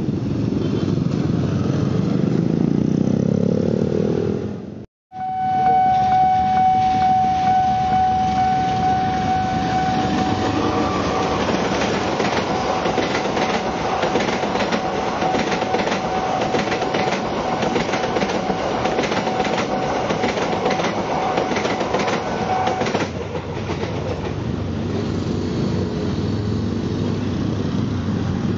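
Motorcycle traffic, then after a brief cut a freight train passing: fast clattering of wheels over rail joints with a steady single-pitched tone held over it. Both stop about 23 seconds in, and motorcycle engines take over again.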